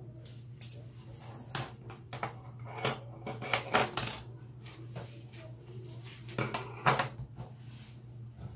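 Metal hair-cutting scissors and thinning shears clinking and clicking as they are handled and set down: a scattered run of sharp metallic clicks, loudest about four seconds in and again near seven seconds.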